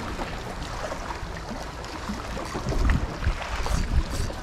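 Sea water lapping and splashing against shore rocks, under a low wind rumble on the microphone that gusts louder about three seconds in and again near the end.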